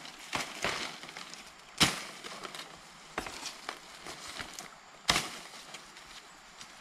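Leafy plant stems being harvested by hand from dense undergrowth: a handful of sharp snaps, the loudest about two seconds in and again about five seconds in, amid rustling leaves.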